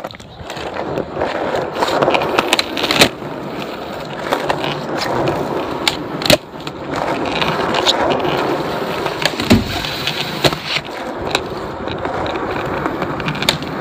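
Skateboard wheels rolling over rough asphalt, a steady grinding rumble, broken now and then by sharp clacks of the board hitting the ground; one heavier thud comes about two-thirds of the way through.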